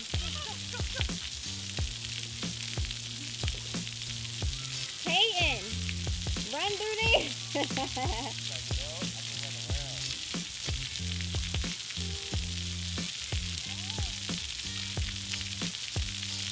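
Background music with a low bass line that changes note every second or two, over a steady crackling hiss.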